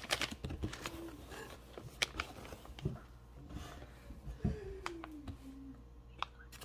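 Plastic toy pouches being handled: scattered light crinkles, clicks and taps, with a faint falling tone about four and a half seconds in.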